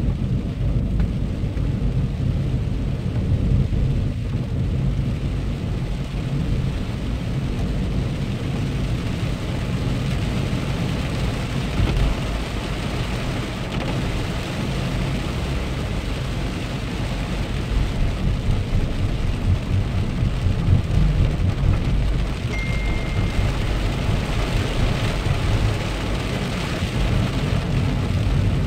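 Inside a moving car on a wet road in rain: a steady low rumble of engine and tyres, with the hiss of wet tyres and rain on the windscreen. The hiss grows louder near the end, and a brief high beep sounds late on.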